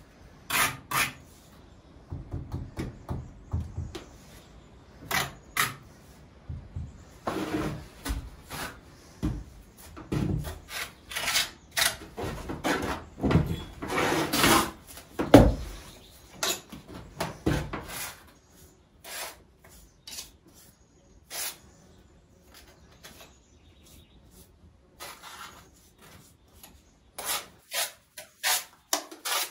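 Mason's steel trowel scraping mortar and tapping bricks while laying a course of upright soldier bricks: a busy run of scrapes and knocks, then fewer, scattered taps from about eighteen seconds in.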